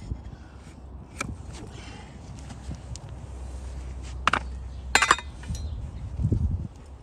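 Scattered sharp knocks and clicks of a donkey's hoof being worked with a large flat hoof knife, the loudest a quick cluster about five seconds in, then a few low thumps near the end.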